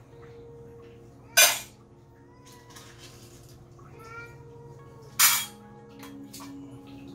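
Dry cat kibble poured from a plastic scoop into metal food bowls: two short, loud pours, about a second and a half in and about five seconds in. A cat meows briefly twice between the pours.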